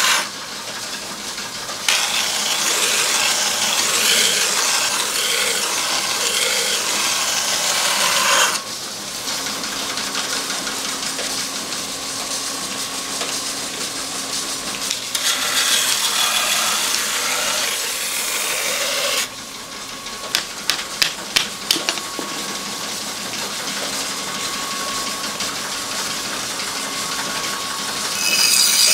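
Large motor-driven grinding wheel turning with a steady hum, with two long stretches of rasping hiss as a kitchen-knife blade is pressed to the stone for flat polishing, a quick run of sharp taps, and another short grinding burst near the end.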